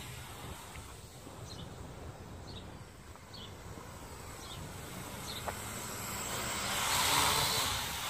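Small electric motors and propellers of a toy FPV quadcopter whirring steadily, growing louder about two-thirds of the way in as it flies close.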